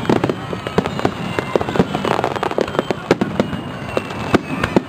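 Fireworks display: a rapid barrage of sharp bangs and crackles, several a second, without pause.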